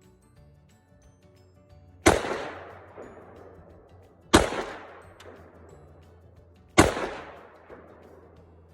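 Three single shots from a Zastava AK-pattern rifle, about two and a half seconds apart, each with a long echoing decay. Faint background music runs underneath.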